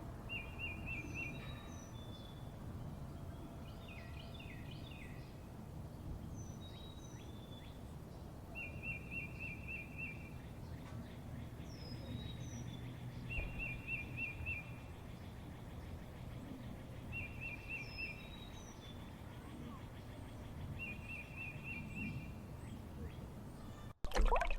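Birds calling outdoors: one bird repeats a short, rapid trill every few seconds, and others give high down-slurred whistles, over a steady low background rumble.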